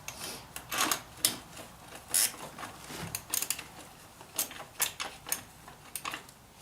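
Irregular metallic clicks and clinks of hand tools and small metal parts being handled while working on a dirt bike's chain adjusters.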